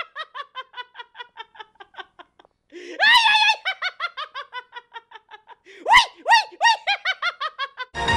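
A person laughing in three long runs of rapid "ha-ha-ha" pulses, each run starting high and sliding down in pitch. Music comes in at the very end.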